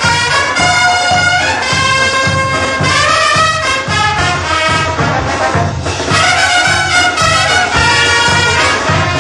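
Brass band playing a morenada: trumpets holding long notes over a sousaphone and a steady bass drum beat.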